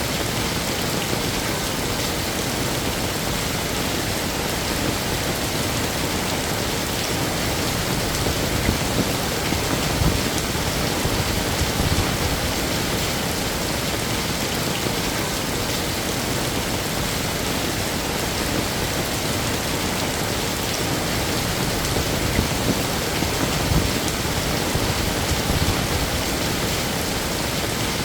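Heavy rain falling steadily, an even hiss of drops with occasional heavier splashes and low thuds.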